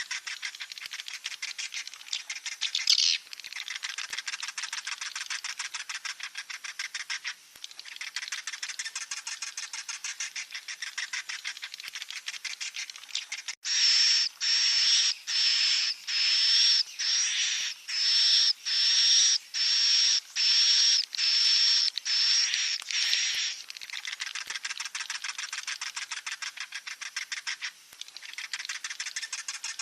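Swiftlet chicks calling: a dense, rapid high chatter, which from about halfway gives way to a run of about fourteen louder, drawn-out high calls in quick succession before the chatter resumes.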